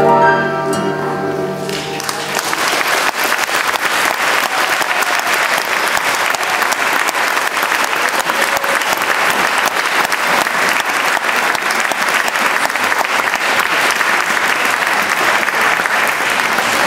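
A mixed choir holds its final chord, which ends about two seconds in, then a hall audience applauds steadily.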